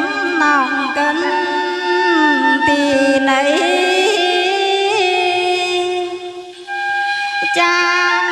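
A woman singing a song into a handheld microphone, through a PA, holding long notes with sliding ornaments; she breaks off briefly about six seconds in and then sings on.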